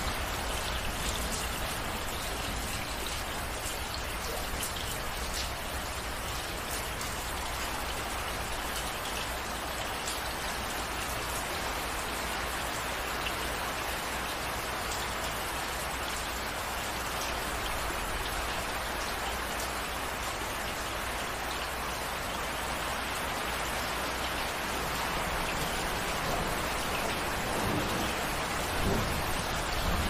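Steady rainfall: an even, unbroken hiss of falling drops.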